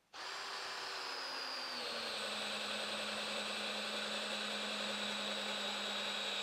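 Bosch cordless hammer drill in drill mode at speed one, starting up and boring a long auger bit into a log. The quiet motor's pitch drops a little about two seconds in as the bit bites into the wood, then it runs steadily.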